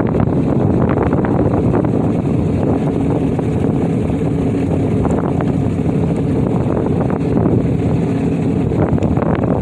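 Jet ski engine running steadily, with wind buffeting the microphone.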